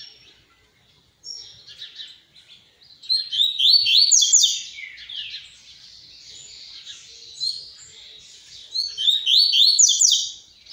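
Double-collared seedeater (coleiro, papa-capim) singing its 'tui-tui' song type: phrases of quick high notes that step upward and then sweep down, one about three seconds in and another near the end, with softer twittering between.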